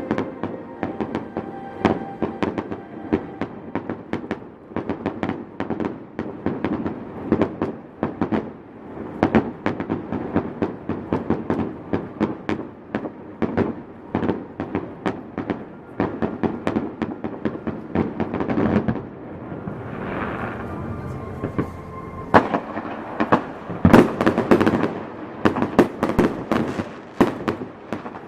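Aerial fireworks display: a dense, continuous run of bangs and crackling reports, heaviest near the end.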